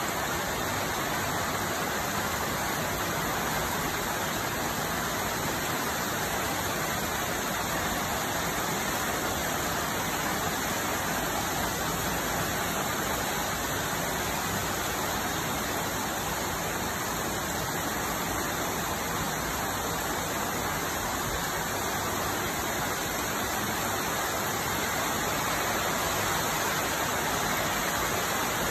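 Heavy rain pouring steadily on trees and grass, a dense, even hiss that holds at one level throughout.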